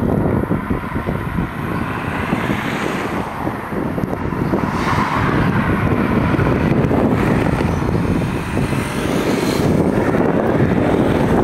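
Street traffic passing, cars and a motorcycle going by in swells, under heavy wind rumble on the microphone.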